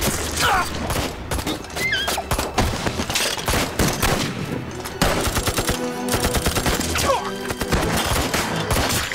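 Film battle sound: a dense fusillade of rifle and machine-gun fire, with men's shouts and cries among the shots and dramatic music underneath.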